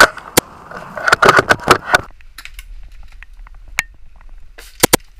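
Airsoft gunfire: a sharp shot from a Novritsch SSG24 bolt-action sniper rifle right at the start, a flurry of quick cracks and clicks about one to two seconds in, then two quick pistol shots near the end.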